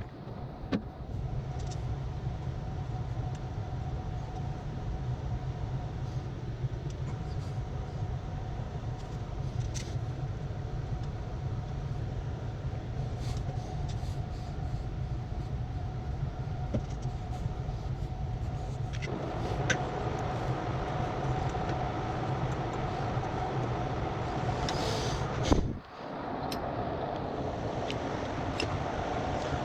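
Steady mechanical running noise with a low hum and a held mid tone, growing louder about two-thirds of the way through, with a sharp knock and a brief drop-out near the end.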